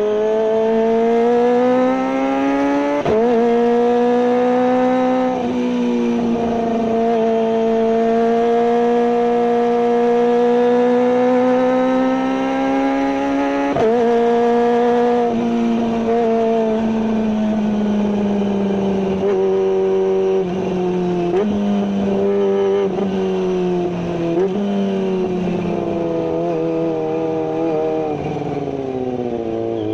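Kawasaki ZX-25R's 250 cc inline-four engine running at high revs through a GPR carbon full-system exhaust with no dB killer. The steady, high engine note slowly rises and falls, with a few sudden brief dips, and drops lower near the end.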